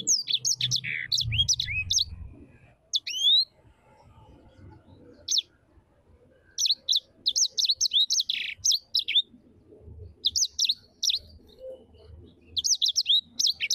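A small bird chirping in quick runs of short, high notes that glide up and down, with a pause of a few seconds near the middle.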